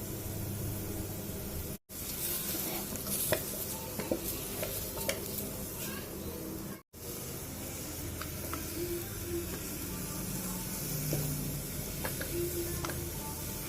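Mutton and freshly added ground spice paste sizzling in oil in a pressure cooker as they are stirred, with scattered scrapes and clinks of the stirring spoon against the pot. The sound drops out abruptly twice, about 2 s and 7 s in.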